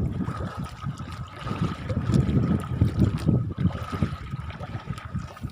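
Rough sea sloshing and slapping against a small boat's hull, a low uneven rumbling surge, with a faint steady high tone running under it.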